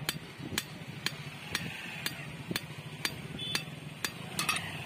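Hand hammer striking a steel chisel blade on an anvil, sharp metal-on-metal blows in a steady rhythm of about two a second.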